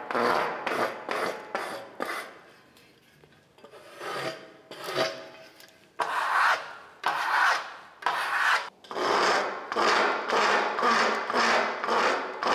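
Steel plastering trowel scraping over fresh lime-based concrete-look plaster on a wall in repeated strokes, about two a second, pressing and compacting the coat. There is a short lull a couple of seconds in.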